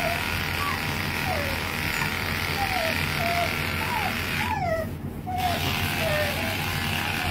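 Electric pet clippers running steadily as they shave through a dog's thickly matted coat, with a string of short, falling whimpers from the dog. The sound dips briefly about halfway through.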